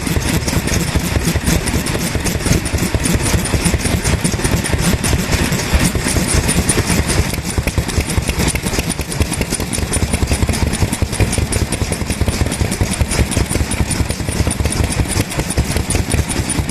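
Daikin stationary oil engine from the early 1950s running steadily, with a fast, even firing beat and a regular metallic ticking.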